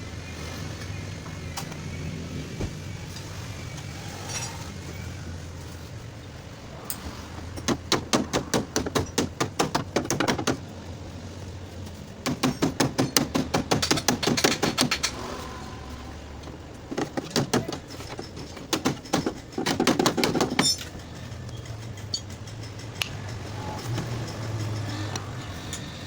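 Rapid hammer taps on the sheet metal of a damaged fender, several strikes a second, in three runs of a few seconds each, over a steady low hum.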